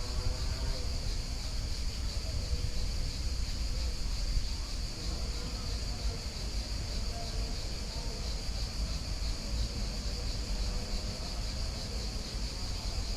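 Insect chorus, a steady high-pitched drone that does not let up, over a constant low rumble.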